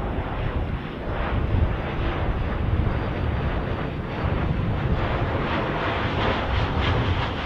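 A four-engined BAe 146-family regional jet passing low overhead with its landing gear down: a steady rush of jet noise, with wind buffeting the microphone.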